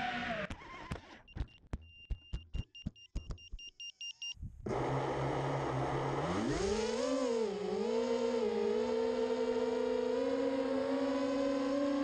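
FPV quadcopter's brushless motors whining, broken off by a run of sharp clicks and knocks over a faint steady high tone. The motors then come back at a low hum, rise in pitch as the quad lifts off, and settle into a steady whine.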